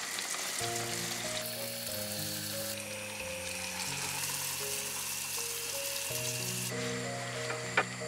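Pişi, rounds of Turkish yeast dough, frying in shallow oil in a pan and sizzling steadily, louder through the middle. A single sharp click comes near the end.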